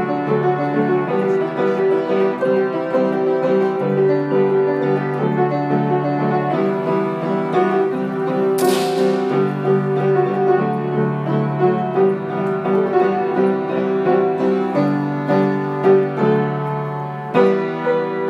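Piano-led background music playing steadily, with one sharp crack about halfway through.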